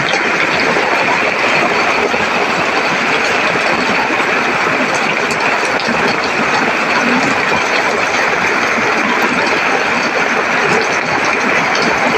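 Rain falling steadily, a dense unbroken patter with fine ticks through it.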